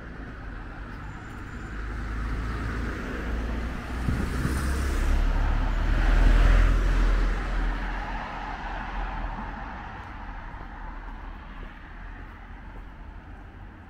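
A motor vehicle passing by on the road, growing louder to a peak about six seconds in and then fading away.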